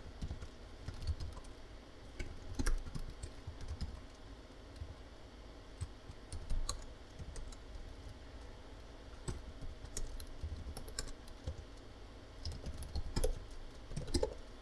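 Typing on a computer keyboard: irregular runs of key clicks with short pauses between them, as a command is typed out.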